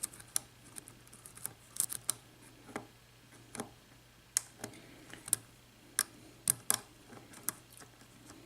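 Faint, irregular metal clicks of a lock pick and tension wrench working the pin stack of a six-pin Schlage lock with security pins, as the picker tries to set a stubborn first pin.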